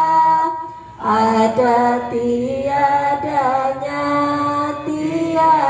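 A woman singing a syair solo in Indonesian, with long held notes that bend and waver in pitch. A brief breath pause comes just before a second in, then the melody resumes.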